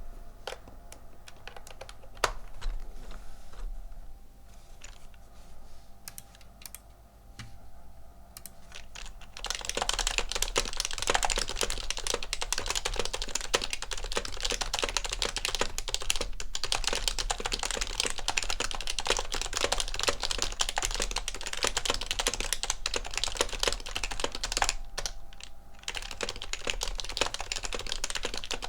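Typing on a 2005 HHKB Pro 1 keyboard with Topre electrostatic-capacitive switches and lubed stabilizers. Scattered single keystrokes give way, about nine seconds in, to a dense run of fast typing. After a brief pause near the end, the typing resumes at a normal pace.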